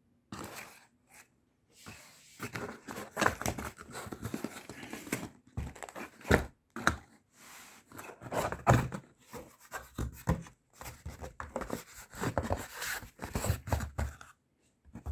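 Packaging being torn open and handled: tearing, crinkling paper or plastic, and the occasional thunk of contents being moved, in irregular bursts.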